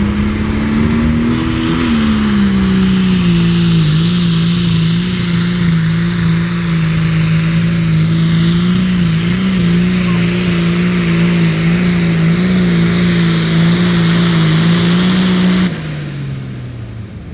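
Hot farm class pulling tractor's engine held at full throttle while pulling the weight-transfer sled down the track: a loud, steady high-revving drone with slight wavers. About 16 seconds in the throttle is cut and the engine note drops away.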